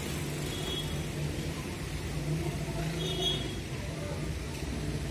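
Busy street-market ambience: a steady low engine hum from road traffic, with faint voices in the background. Two short high chirps come about half a second in and again about three seconds in.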